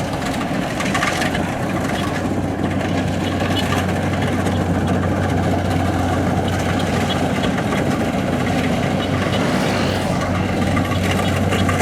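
Kubota DC-70 combine harvester's diesel engine running steadily at constant speed, with a continuous low hum and even mechanical noise.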